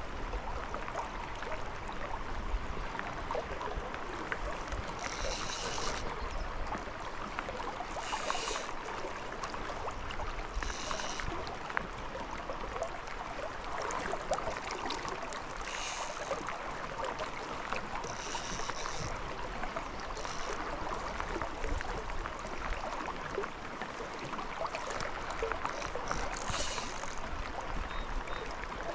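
Steady patter of rain falling on the river surface and on the angler's rain gear, with a brief high-pitched whir about six times.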